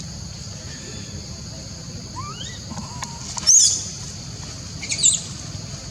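Monkey giving shrill, high-pitched shrieks: faint rising calls about two seconds in, then two short, loud screams about a second and a half apart.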